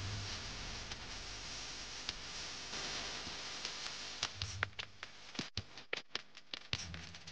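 A steady rustling hiss of paper being handled, then, from about four seconds in, a run of quick light taps and scratches as a felt-tip marker draws short strokes on the centre of a folded paper flower.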